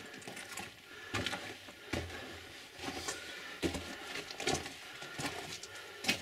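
Footsteps crunching on loose rock and gravel, an uneven walking pace of short scuffing steps.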